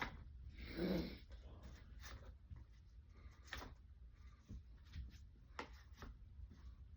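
Faint scattered clicks and taps of foam Mega darts being pushed into the drum of a Nerf Mega Mastodon blaster, with a short low sound about a second in.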